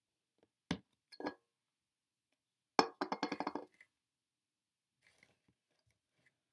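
Household objects being handled and set down: two light knocks, then a sharp clack followed by a quick rattling clink lasting under a second, and a few faint ticks near the end.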